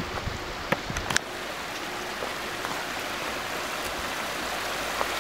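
Mountain stream running steadily over rocks, growing a little louder toward the end, with a few sharp clicks of stones underfoot in the first second or so.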